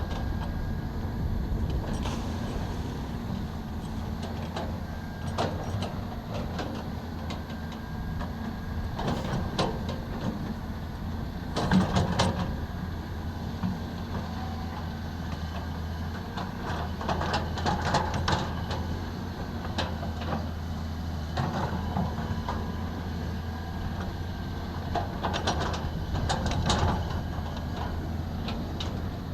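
Excavator engine running steadily, with irregular clanks and knocks from the machine as it works; the loudest knock comes about twelve seconds in.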